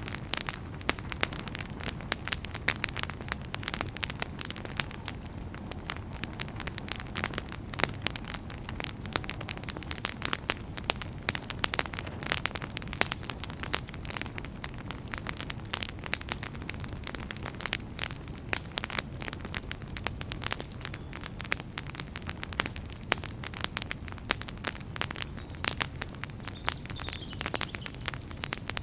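Wood fire burning with dense, irregular crackles and pops over a low steady rumble.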